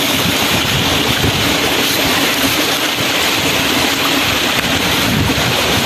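Steady rushing noise with an uneven low rumble underneath.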